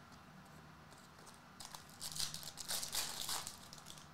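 Hands handling a stack of hockey trading cards: a faint crinkling rustle from about one and a half seconds in, lasting about two seconds.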